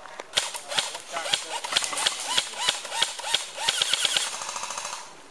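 Airsoft guns firing: a string of single shots, each with a short whine, then a rapid full-auto burst near the end.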